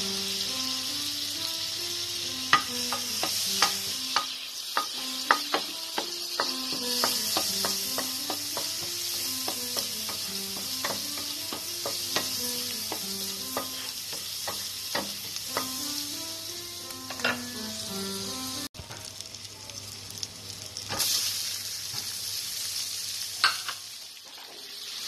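Sliced ginger sizzling in melted butter in a frying pan as it is stir-fried, with sharp clicks from stirring. Light background music with a stepping melody plays over it and stops about 19 seconds in.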